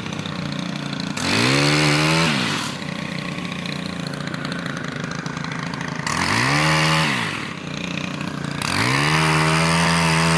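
Gas-powered pole saw's small engine idling and revved up three times, each rev rising in pitch, holding briefly and dropping back to idle, as the saw cuts into a branch.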